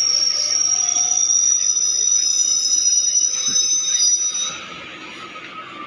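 Passenger train's wheels squealing on the rails while slowing along a station platform: several high, steady tones that drift slightly lower, over running noise, then fade out about four seconds in.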